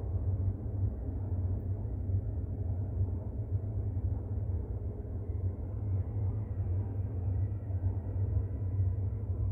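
AS 14 metro train running through a tunnel, heard from inside the car: a steady low rumble, with a faint high whine joining about six seconds in.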